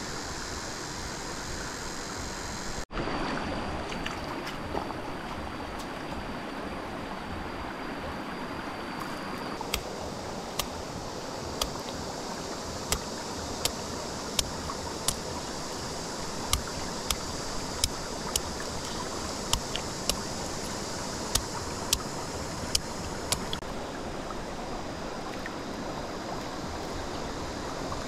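Steady rushing of running water, like a stream. From about ten seconds in, a series of sharp clicks or taps comes roughly once a second for some fifteen seconds.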